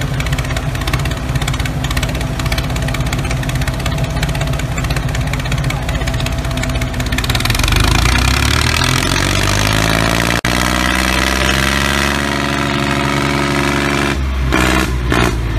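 A tractor engine idles steadily, then about halfway through rises in pitch as it revs up and holds at a higher, busier running note. There are a couple of brief breaks near the end.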